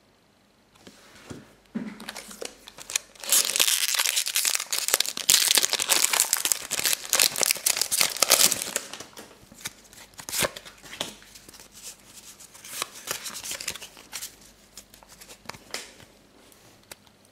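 Foil Pokémon trading-card booster pack being torn open and crinkled in the hands, loud and dense for several seconds in the middle. It then gives way to lighter, scattered crinkles and clicks.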